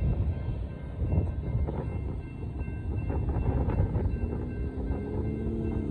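Union Pacific freight train of gravel hopper cars rolling past on the rails: a steady low rumble with a few knocks. From about four seconds in, a road vehicle's engine hum rises over it.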